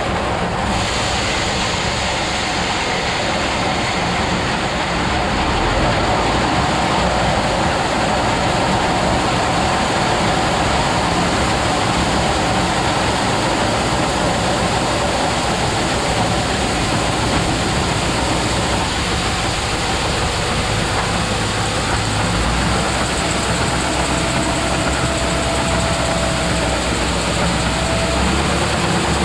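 Grain-handling setup switched on and running steadily, moving grain from one gravity wagon into another: a loud, even rushing noise with no break.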